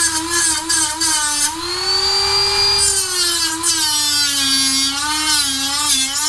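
Dremel rotary tool running and cutting through the hard plastic mounting tabs of an LED fog light housing. Its high whine wavers in pitch as it cuts, climbing for a while about two seconds in and then dropping back.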